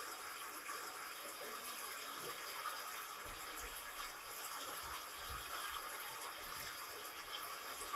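Steady rushing noise like running water, with a couple of faint low bumps about three and five seconds in.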